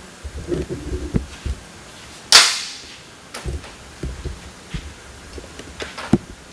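Tools and metal parts being handled: a run of small knocks and clinks, and about two seconds in a single sharp, loud crack that fades out over about half a second.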